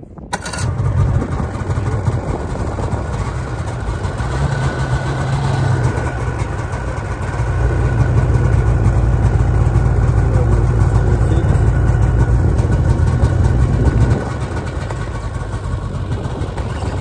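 Snowmobile engine starting up about half a second in, then running. It runs louder from about seven seconds in and eases back to a lower, steadier run around fourteen seconds.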